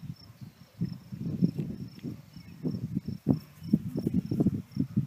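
Crickets chirping steadily in a faint, evenly repeating high pulse, under irregular low thumps and rustling close to the microphone.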